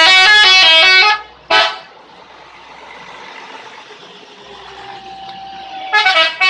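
Bus telolet horn playing a quick tune of several stepped notes, then a short single blast; after a few seconds of traffic background, another burst of telolet notes near the end.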